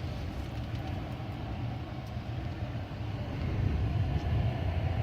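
Low, steady rumble of a truck driving in a strong wind storm, heard from inside the cab, growing a little louder near the end.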